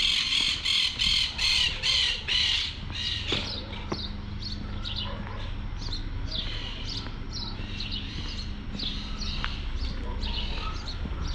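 Birds calling: a run of loud, harsh, repeated calls, about three a second, for the first two seconds or so, then scattered short chirps over a steady low rumble.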